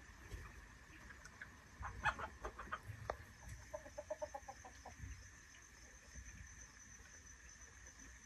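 Faint clucking of domestic fowl: a string of short, sharp clucks about two seconds in, then a quick run of lower clucks around four seconds in.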